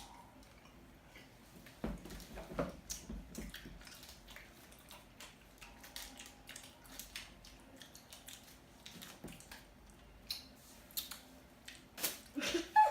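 People chewing soft chocolate-coated marshmallow and strawberry gummy candy: scattered small wet clicks and squishy mouth sounds.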